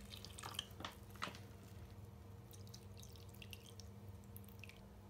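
Water poured from a glass measuring cup onto fine cat litter: faint trickling and dripping with a few soft ticks, loudest in the first second and a half.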